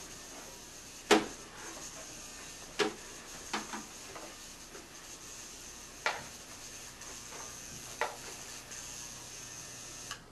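A handheld degaussing coil being waved close to a CRT television screen to demagnetise it and clear the colour blotches. There is a faint steady hum with a high whine under it, and about five sharp clicks and knocks as the coil is handled, about one, three, six and eight seconds in.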